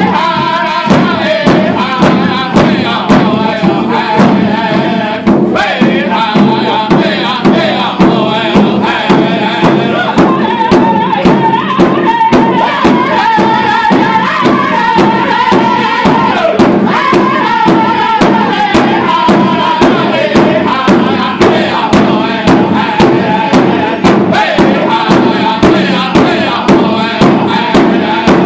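Powwow drum group singing a dance song: voices chanting in unison over a large hand drum struck in a steady, even beat.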